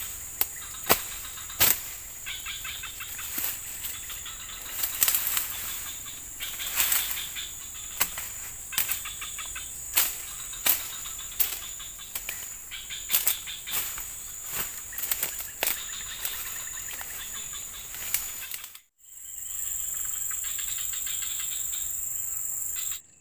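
Footsteps pushing through dense ferns and undergrowth, with leaves rustling and twigs snapping in irregular sharp cracks, over a steady high-pitched drone of insects. The brush noise stops about 19 seconds in, leaving only the insect drone.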